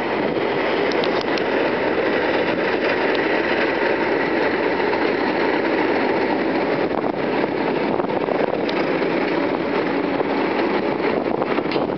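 Class 37 diesel-electric locomotive's English Electric V12 engine running steadily under power as it hauls a train past, with a Class 08 shunter's diesel coupled behind it, and a few short clicks from the train.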